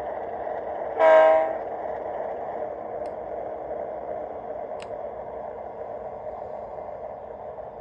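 A short horn blast, a single pitched honk about half a second long, about a second in, over a steady running noise that slowly fades.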